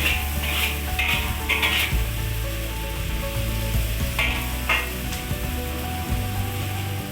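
Smoked fish and green chilies sizzling in a hot pan while being stirred. There are three short stirring strokes in the first two seconds and two more about four seconds in.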